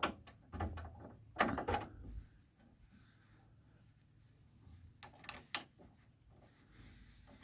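Light knocks and clicks from handling the inverter welder's side wire-feed compartment, in two short clusters: one about a second in, another around five seconds in.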